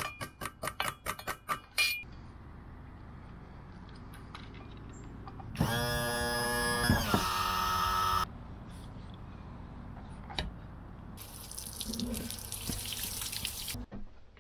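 Water running through a garden hose hooked up to flush the outboard, with a loud whistling rush for about two and a half seconds midway. A quick run of sharp clicks comes at the start.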